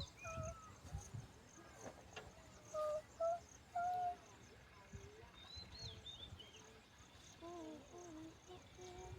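Birds calling in short whistled notes and glides, some rising and falling, over a faint, steady high insect trill.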